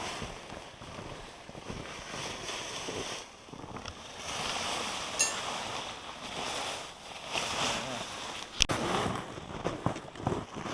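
Footsteps crunching and swishing through snow on a trail, swelling roughly once a second, with wind on the microphone and a few sharp knocks near the end.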